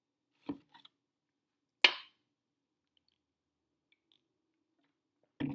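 Someone downing a shot of liquor and chasing it: a short soft sound about half a second in, then about two seconds in a single sharp clack with a short ring, the loudest sound. Then near silence during the chaser, and a brief burst of noise just before the end.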